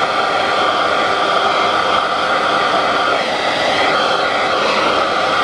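12-volt fan powered from a car's cigarette lighter socket, running steadily: a constant rush of moving air with a steady hum.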